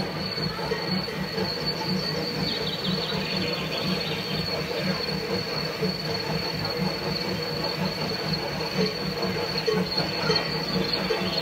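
H0-scale model steam locomotive pulling a coach along layout track: a steady high whine with an even rhythmic pulsing underneath, and short falling squeals a few seconds in and again near the end.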